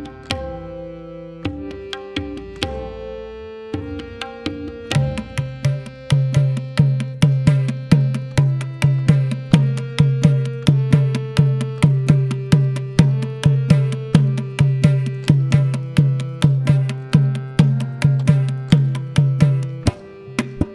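Harmonium playing a repeating lehra melody under Indian classical hand-drum strokes. About five seconds in, the drumming becomes dense and fast, with a strong steady low note beneath it.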